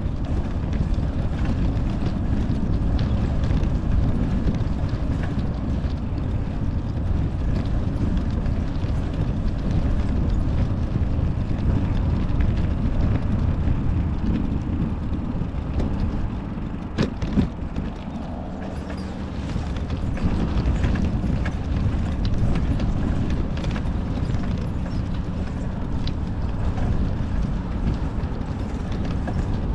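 Wind buffeting the microphone over the rumble of a bicycle rolling along a paved path. About halfway through come a couple of sharp knocks as the bike rolls over railroad tracks.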